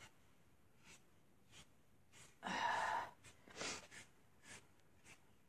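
A person breathing out heavily once, about two and a half seconds in, then a shorter breath about a second later, with a few soft clicks between.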